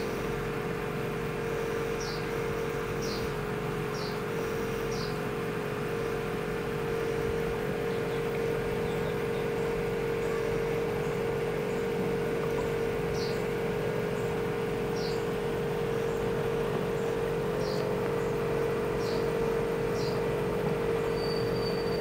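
Aquarium air pump and filter running: a steady hum with a hiss of bubbling water. Short, high chirps that fall slightly in pitch come every second or two.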